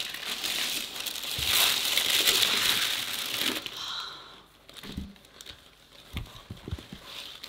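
Tissue paper rustling and crinkling as a leather boot is pulled up out of it, dying down after about three and a half seconds. Then a few soft knocks as the boot is handled.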